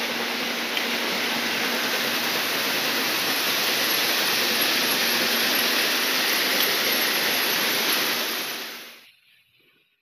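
Gravel-crushing plant running: a loud, steady rush of conveyor and crusher machinery and moving stone, with a faint steady hum underneath. It fades out near the end.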